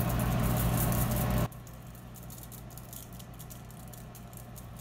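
Spice shaker shaken over raw steaks: a loud, dense rattle for about the first second and a half that stops abruptly, then faint scattered ticking as seasoning lands on the meat and foil, over a steady low hum.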